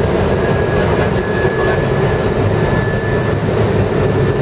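Steady flight-deck noise of an Airbus A320 on final approach: airflow and engine noise heard inside the cockpit. A faint high steady tone runs through the first three seconds or so.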